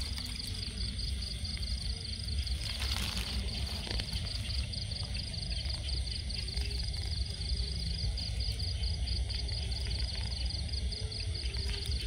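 A cricket chirping continuously in rapid, even pulses, over a steady low rumble.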